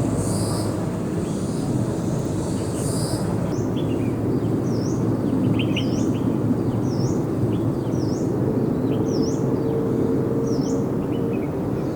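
A songbird repeating a short, sharp chirp every second or so, starting about four seconds in, over a steady low rumble of distant traffic or aircraft.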